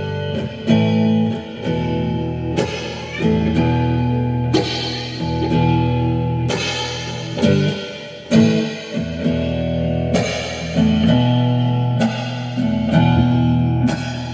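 Guitar being played freely, improvised: chords struck about once a second and left to ring, changing from one to the next.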